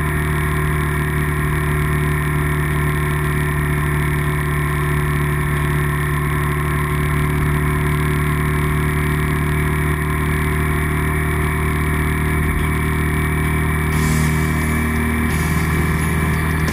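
Yamaha Drag Star 400's V-twin engine running steadily at expressway cruising speed, heard from the bike with road and wind noise. The hiss grows near the end.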